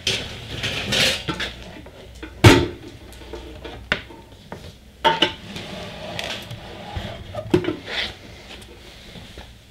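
Irregular metallic clinks and knocks of hand tools handled against an open welder's metal case, the loudest knock about two and a half seconds in.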